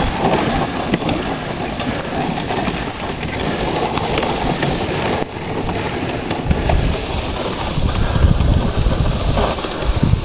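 Dog sled running over a snowy trail behind a husky team: a steady rushing and rattling of the runners and sled on the snow. Heavier low rumbling sets in from about six and a half seconds in.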